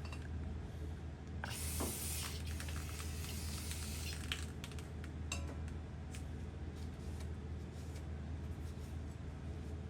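A one-second burst of aerosol brake cleaner sprayed onto an engine main bearing shell about a second and a half in, followed by a few light clicks of the metal shell being handled, over a steady low hum.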